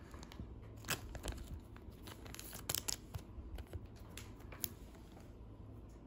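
A baseball card being slid into a thin clear plastic sleeve: faint crinkling of the plastic with a few sharp ticks of handling, quieter toward the end.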